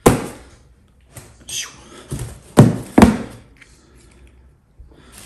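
Cardboard shipping box being handled and set down on a tabletop. A sharp thunk comes right at the start and lighter rustles and taps follow; about two and a half seconds in come two louder, deeper thuds close together, then it goes quiet.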